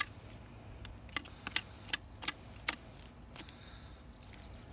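A knife blade clicking and scraping against a small crappie and the wooden board it lies on while the fish is being gutted: a string of short, sharp clicks at irregular intervals.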